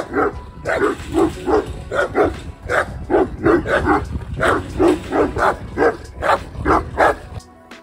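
Guard dogs behind a metal gate barking repeatedly, about two to three barks a second, at someone approaching. The barking cuts off near the end.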